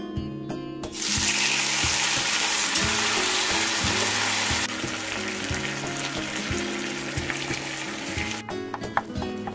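Marinated beef bulgogi sizzling as it hits a hot cast-iron pan. A loud hiss starts about a second in, eases a little around the middle, and dies down near the end, over soft background music.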